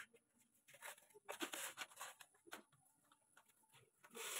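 Faint clicks, taps and rustles of a sheet-metal downspout funnel being handled at a rain gutter. A louder, steady, even noise starts just before the end.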